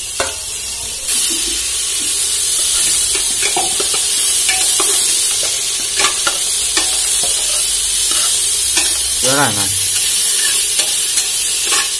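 Tomatoes, onions and coriander leaves sizzling in hot oil in a pressure cooker as they are fried on low heat, with a metal spatula stirring and scraping the pot and clicking against it now and then. The sizzle gets louder about a second in.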